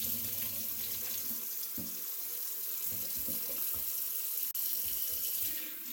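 Kitchen faucet running a steady stream into a stainless steel sink, water splashing as a sponge is rinsed and wrung under it. The sound cuts out for an instant about four and a half seconds in.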